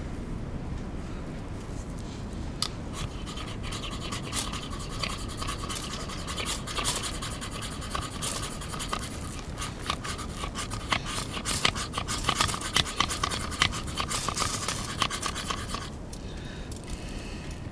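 Rapid, repeated rasping scrapes of a ferro rod being struck to throw sparks into tinder to light the stove. They start a couple of seconds in, grow busier, and stop a couple of seconds before the end.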